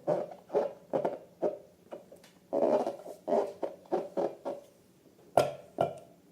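Slime being squeezed and kneaded by hand, squelching in quick repeated pulses about two to three a second, with one longer squish about two and a half seconds in. Near the end, two sharp snaps a split second apart.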